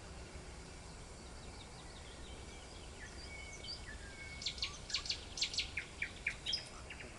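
A songbird calling with a quick string of short, high chirps in the second half, over a steady faint outdoor background.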